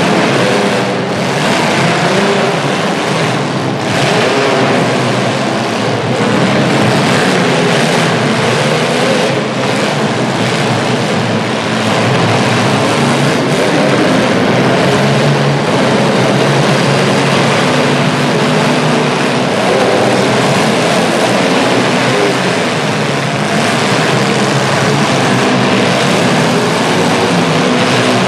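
Several demolition derby cars' engines running and revving at once, a loud continuous mix of wavering engine pitches.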